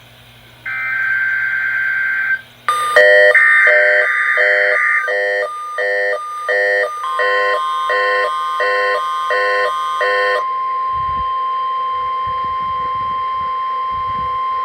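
NOAA Weather Radio EAS/SAME test: the digital header sounds twice as harsh buzzing data bursts. Then an alert beeps about seven times. The steady 1050 Hz warning alarm tone starts about seven seconds in and holds to the end.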